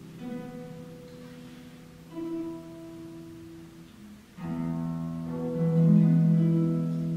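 Concert pedal harp played solo: a few soft plucked notes ring out and fade, then a fuller, louder chord enters about halfway through and swells a second later.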